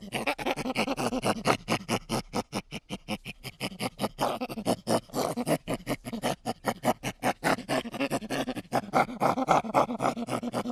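An animal calling in a fast, rhythmic run of harsh pulses, several a second, with no break.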